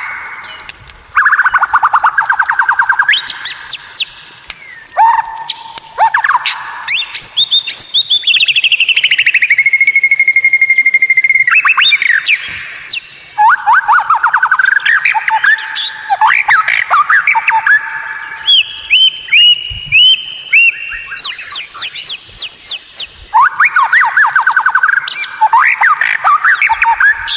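White-rumped shama (murai batu) song used as a masteran training recording: fast repeated trills, sweeping whistles and one long held whistle near the middle, phrase after phrase with short pauses.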